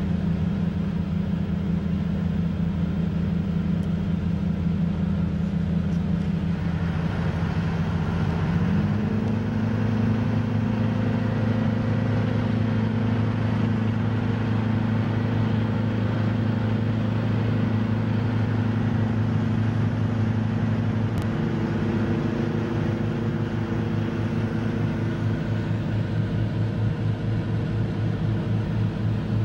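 A boat engine droning steadily under the open deck. Its note shifts about a third of the way in and changes again about two-thirds in.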